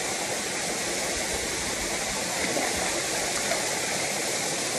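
Cetti Falls waterfall pouring steadily into the pool at its base: a constant, even rush of falling water.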